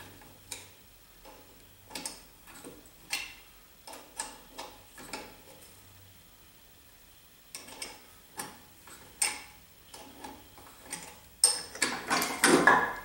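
Steel wrench clicking and clinking on the 17 mm bolts of a compressor pump's discharge manifold as they are loosened and spun out: irregular sharp metallic ticks, a short pause in the middle, and a louder flurry of clinks near the end.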